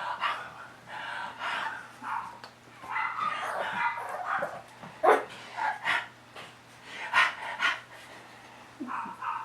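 Mi-Ki puppies yipping and whining in short, high-pitched cries, with a sharper, louder yelp about five seconds in.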